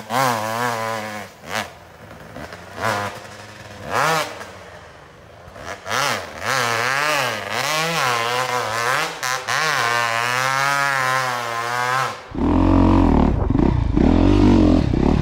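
Dirt bike engines revving up and down over and over as the rear wheel spins and claws through slushy snow and mud. About twelve seconds in the sound cuts to a much louder, closer dirt bike engine under way, with a strong low rumble.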